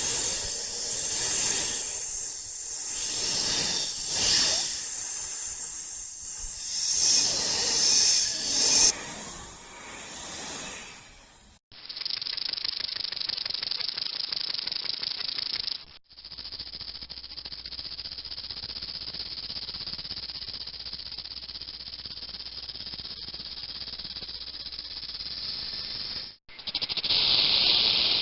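Snake hissing, several separate recordings one after another. First come long, uneven hisses that swell and fade, then two steadier, duller hisses, and a fast rattle starts near the end.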